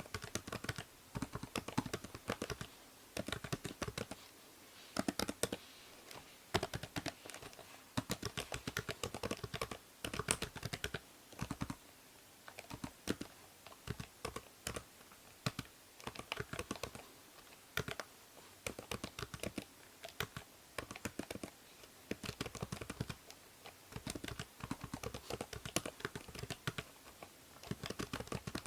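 Typing on a computer keyboard: quick runs of key clicks with short pauses between bursts, over a faint steady hiss from the binaural microphone.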